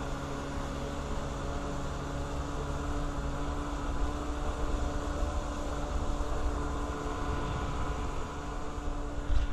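Stand-up jet ski engine running at a steady speed, with water and wind noise. A few sharp knocks come near the end.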